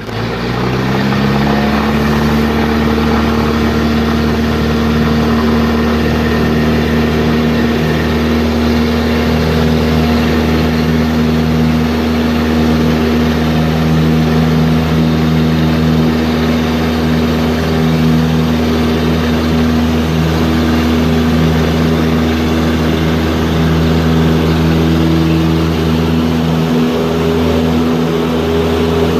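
Cessna 172 Skyhawk's four-cylinder Lycoming piston engine and propeller running up to power, the pitch rising over the first second or so, then holding a steady drone at high power for the takeoff.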